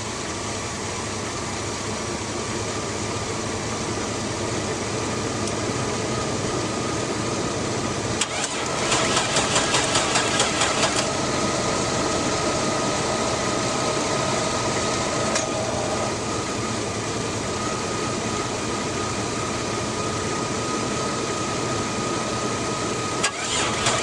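Starter cranking a 2001 Chevy Blazer's 4.3 L Vortec V6 in quick regular pulses for a couple of seconds about eight seconds in, and again near the end, without it catching; the owner suspects a distributor timing problem. A steady mechanical hum runs underneath.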